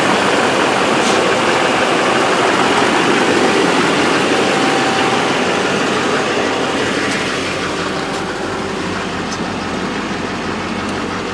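2008 Duramax LMM 6.6 L V8 turbo-diesel idling steadily just after its first start on new glow plugs. It is a little quieter near the end, heard from inside the cab.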